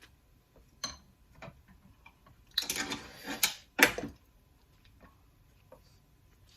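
Close-up eating sounds of a person chewing ramen and shrimp: scattered wet mouth clicks, with a louder noisy stretch in the middle and the loudest smack just before four seconds in.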